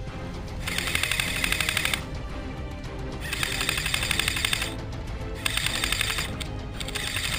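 Background music with four bursts of rapid, evenly spaced clicking shots, each about a second long, typical of an airsoft electric gun firing on full auto.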